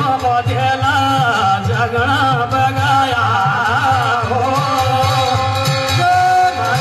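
Kumaoni jagar devotional folk music: a male voice sings long, wavering melodic lines over a steady drum beat, holding one note near the end.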